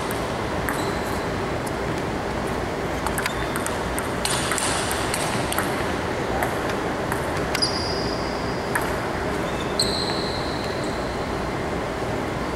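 Table tennis ball clicking off the bats and the table during a rally, in short uneven runs of hits over a steady background hiss. Two short high squeaks come near the middle.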